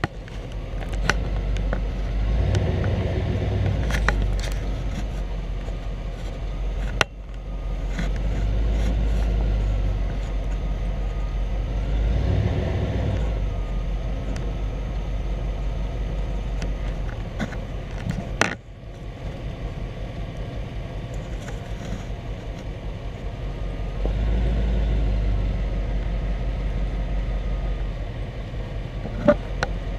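Truck driving slowly over rough ground: a steady low engine and road rumble that swells and eases, with a few sharp knocks and rattles as it bumps along.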